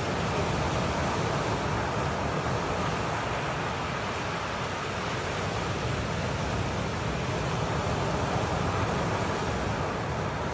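Ocean surf breaking and washing in over a rocky shoreline: a steady rushing noise without distinct separate crashes.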